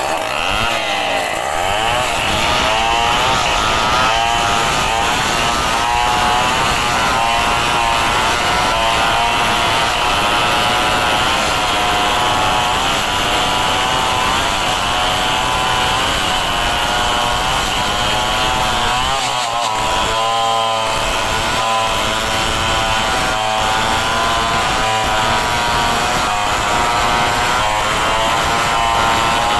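Two two-stroke chainsaws, one a Stihl, running at high revs together while cutting lengthwise into a log from both ends. Their engine pitches waver and overlap as the chains bite into the wood.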